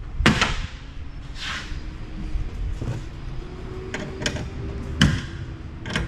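Scattered knocks and clanks of metal scrap parts and hand tools being handled and set down on a metal electrical chassis. There is a sharp knock about a quarter second in, a louder one about five seconds in, and several lighter ones between.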